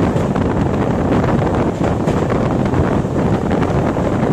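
Wind rushing over the microphone of a phone held at a moving train's window, over the steady running rumble of the train.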